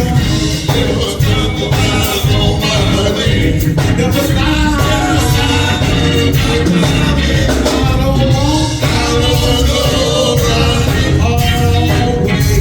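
Men's choir singing a gospel song over a live band, with a steady drum beat and heavy bass.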